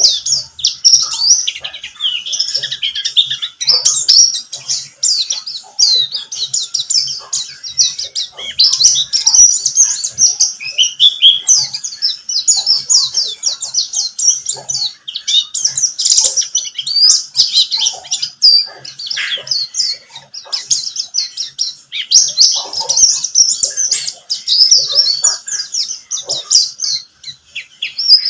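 Pleci (white-eye) singing a long, rapid, high-pitched twittering song of chirps and trills. It is a lure song played to prompt caged white-eyes to sing.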